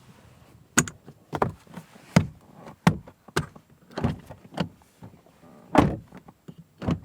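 Toyota RAV4 hybrid cabin fittings being handled and worked by hand: about a dozen irregular clunks and knocks, some sharp and loud, others lighter, typical of the gear lever and interior trim being moved and tapped.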